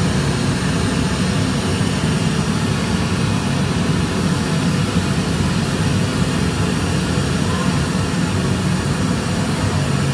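Steady, loud road noise of a vehicle on the move: engine and wind noise with a constant low rumble and no pauses.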